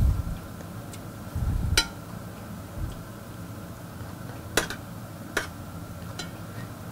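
A metal spoon clinking against a stainless steel saucepan while stew is spooned out onto a plate: about four sharp, separate clinks, with soft low thuds in the first two seconds.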